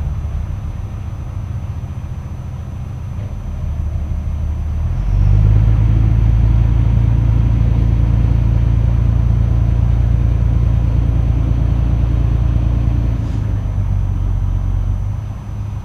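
A large engine running with a low rumble. It grows louder about five seconds in, holds for about eight seconds, then eases off near the end.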